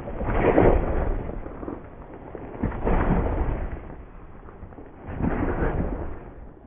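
Three heavy rumbling booms, each swelling up and dying away over about a second, with a low rumble running between them.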